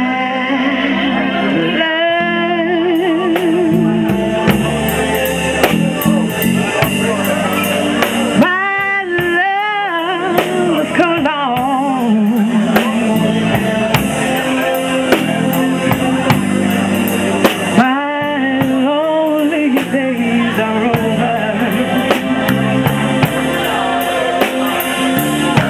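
Live soul band playing a ballad: a woman sings into a microphone with strong vibrato and long held notes, over drum kit with steady cymbal strokes, electric bass and keyboard.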